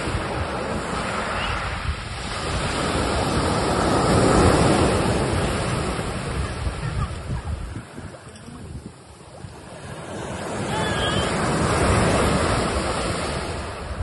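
Sea surf: waves washing in and drawing back, swelling twice and easing off in between.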